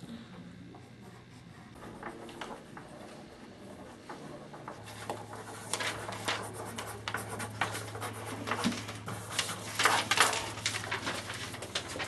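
Pencils scratching on paper and sheets of paper being handled and rustled, a scatter of small clicks and scrapes that grows busier partway through and is densest near ten seconds. A steady low hum comes in about five seconds in.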